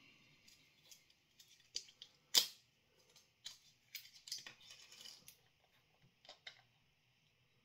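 Small hot sauce bottle being opened by hand: scattered small clicks and faint scratching of its cap and seal, with one sharper click about two and a half seconds in.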